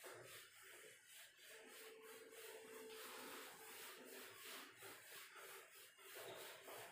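Faint, repeated back-and-forth wiping of a whiteboard duster across a whiteboard, a rhythmic rubbing hiss as the board is erased.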